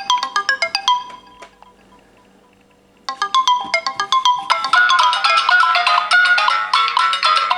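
Samsung Galaxy phone ringtone melody, a run of quick bright notes that stops about a second in and starts again after a two-second pause. About a second and a half after it resumes, a second melody joins, the incoming-call ringtone and the alarm tone playing over each other.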